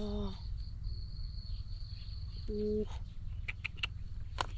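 Insects chirping steadily in a high, pulsing trill over a low rumble. A short low call comes about two and a half seconds in, and a few sharp clicks come near the end.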